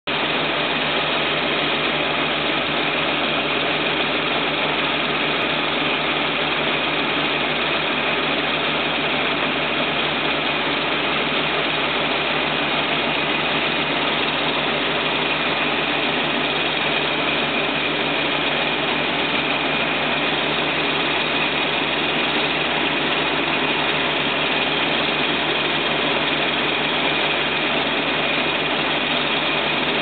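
CLAAS combine harvester running steadily while its unloading auger pours threshed rice out of the spout: an even, unchanging mechanical din with a faint steady high whine.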